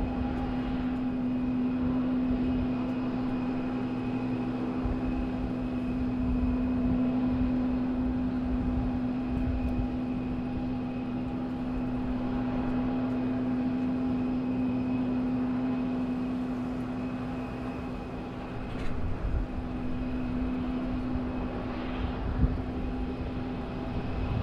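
Airbus A321 jet airliner on final approach and landing, its engines giving a steady hum with a held tone over an uneven low rumble. A few sharp knocks come in the last few seconds.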